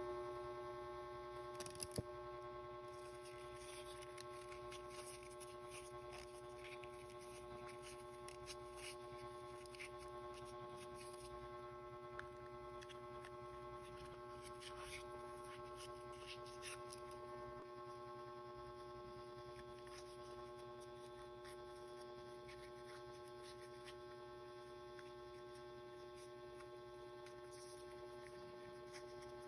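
Faint steady electrical hum made of several steady tones, with a few light clicks, mostly about two seconds in.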